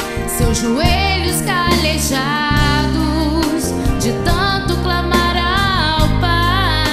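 A Christian worship song: a singer holding wavering, vibrato-laden notes over instrumental backing with a steady bass.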